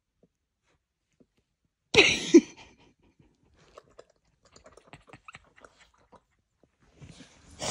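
A person's breathy whoosh, like a loud whisper, about two seconds in and again near the end, made to excite a corgi. In between, faint wet clicks of the corgi's mouth licking and mouthing.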